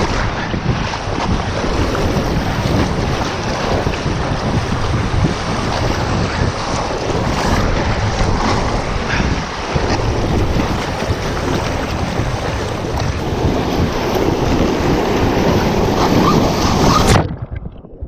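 Whitewater rapids rushing and splashing around an inflatable kayak, with wind buffeting the microphone; the rushing cuts off abruptly near the end.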